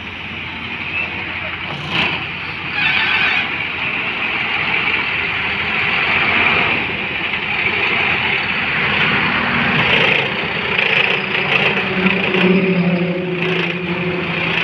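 Diesel engine of an Eicher tipper truck running, a continuous mechanical noise, with a clearer low engine drone coming up in the last few seconds.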